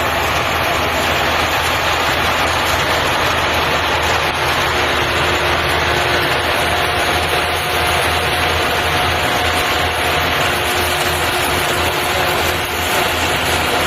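RK-150 half-feeding rice combine harvester running steadily, its engine and machinery making a dense, even mechanical noise. A faint steady whine joins about halfway through.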